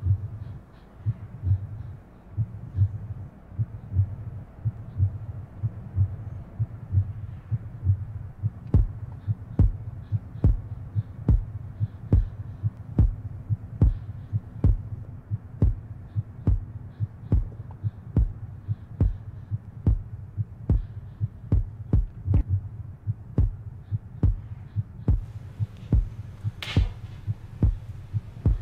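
Heartbeat sound effect: a steady low throbbing pulse over a low hum. From about eight seconds in, a sharp tick lands with the beats, roughly one and a half a second.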